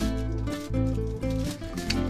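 Instrumental background music with sustained notes over a steady bass line.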